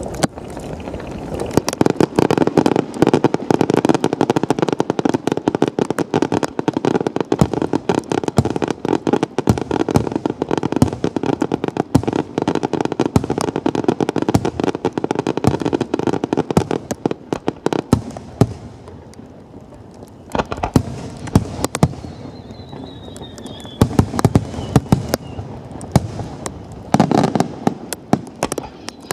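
Electronic firecrackers going off in a dense, rapid string of sharp cracks, thinning after about seventeen seconds to scattered pops, with a short dense burst again near the end.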